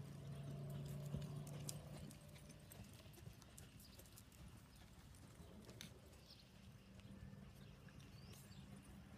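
Ridden horse trotting on sand-and-gravel arena footing: faint, soft hoofbeats. A low hum fades out about two seconds in.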